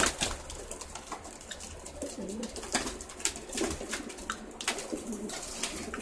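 Racing pigeons bathing in a shallow tub of water: a burst of wing-flapping and splashing at the start, then more short splashes and flaps every second or so. Pigeons coo low in the background from about two seconds in.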